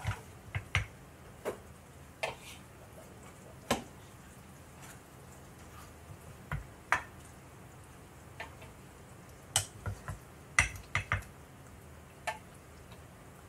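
Ladle clicking and knocking against a cooking pan and a serving bowl while chicken adobo is dished out: scattered sharp clicks, with a quick cluster of several about ten seconds in.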